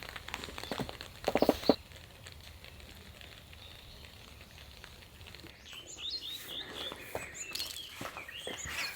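Rain pattering and dripping, with a short knocking clatter about a second and a half in; from a little past halfway, small birds chirping over and over.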